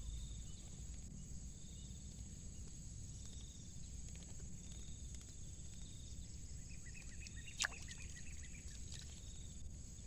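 Steady high-pitched insect buzz, like crickets or cicadas, over a low rumble, with short chirps repeating every second or two. A sharp click about seven and a half seconds in is surrounded by a short run of quick ticks.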